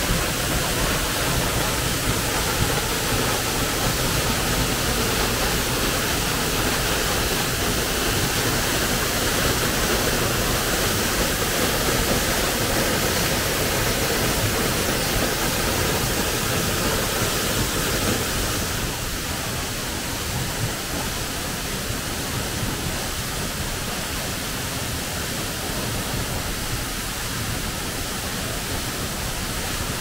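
Waterfall: a steady rush of falling water, dropping somewhat in level about two-thirds of the way through.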